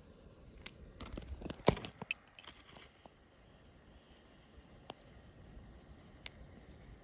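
Light handling noises: a quick cluster of small clicks and taps, the loudest about a second and a half in, then a few single clicks spaced out over the next seconds.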